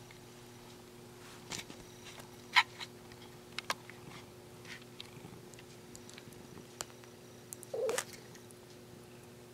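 Domestic cat making a short, brief call as it opens its mouth wide near the end, with a few light clicks earlier on.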